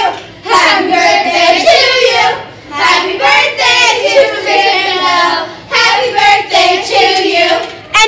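A group of children singing together in several long phrases, each broken by a short pause.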